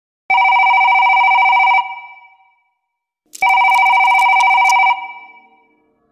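Telephone bell ringing twice, each ring about a second and a half long with a short fade after it. Faint clicks sound during the second ring.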